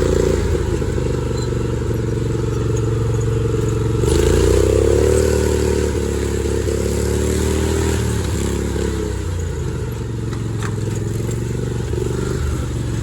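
ATV engine running during a trail ride, revving up about four seconds in and then easing back off.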